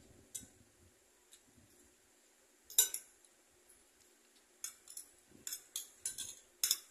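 Metal fork and spoon clinking and scraping against a plate while eating rice. There is one loud clink about three seconds in, then a quick run of lighter clinks in the last two seconds.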